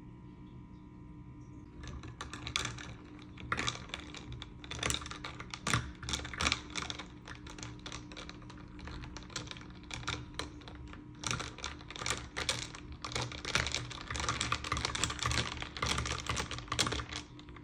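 A long metal spoon stirring an iced drink in a glass, with the spoon and ice cubes clinking against the glass in fast, irregular clicks. The clinking starts about two seconds in and stops just before the end.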